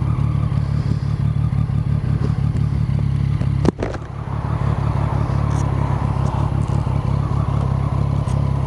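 Triumph motorcycle engine idling steadily at a standstill, with one sharp click about three and a half seconds in.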